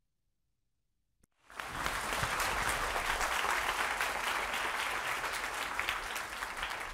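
A large seated audience applauding. The clapping starts suddenly about a second and a half in, after near silence and a single click, and then holds steady.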